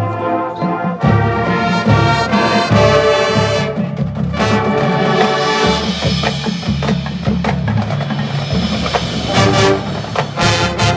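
High school marching band playing a full-ensemble passage: sustained brass chords over drumline percussion, with a run of sharp accented hits near the end.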